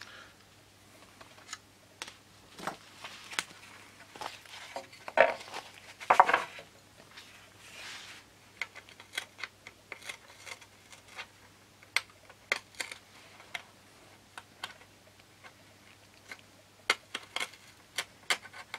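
Small pointed hand tool scraping and picking inside a hole in a thin plywood plate on a balsa wing. Irregular light clicks and ticks, with two louder scraping strokes about five and six seconds in.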